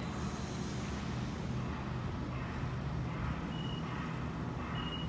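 Sydney Trains double-deck electric suburban train moving past along the platform: a steady low electrical hum over running rumble. Two short high-pitched chirps come near the end.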